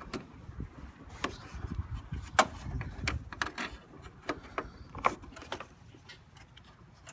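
Several sharp clicks and light knocks spread out over a few seconds, from hands working the car's hood latch and its freshly reconnected release cable.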